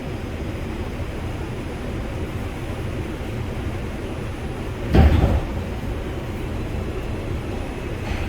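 R142 subway car running, heard from inside the car as a steady low rumble of wheels and running gear. About five seconds in there is a single loud thud.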